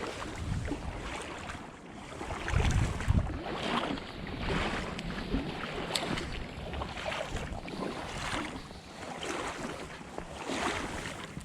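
River water splashing and sloshing in irregular surges about once a second or so, as legs wade through it, with wind buffeting the microphone.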